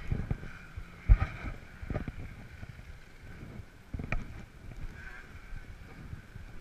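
Wind rumbling on a body-worn action camera's microphone, with a few handling knocks; the sharpest comes about a second in, with weaker ones near two and four seconds.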